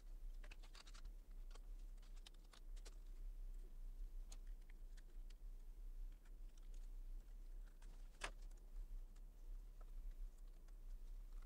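Faint, scattered clicks and light taps of a Dahua C800A SATA SSD and its metal drive caddy being handled and fitted into a laptop's drive bay. There is a quick cluster of clicks about a second in and one sharper click at about eight seconds, over a steady low hum.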